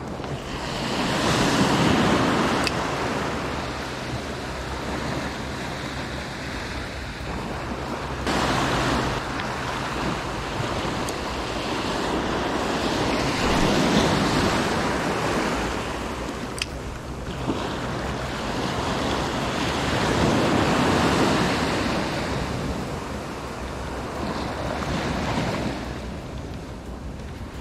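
Small surf breaking and washing up a sandy beach, swelling and fading about every six seconds, with wind on the microphone.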